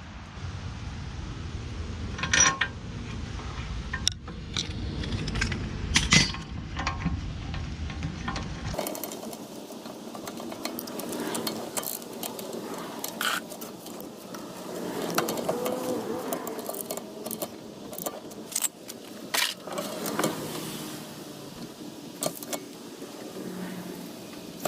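Irregular clinks and knocks of metal hand tools and car parts being handled. A low background rumble cuts off abruptly about nine seconds in.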